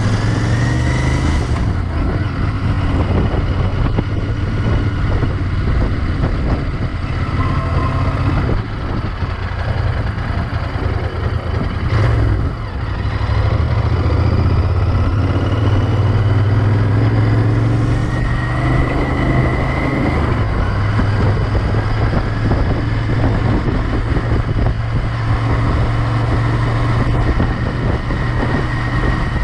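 Royal Enfield Interceptor 650's parallel-twin engine running under way, heard from the rider's seat. It eases off about a third of the way in and picks up again a few seconds later.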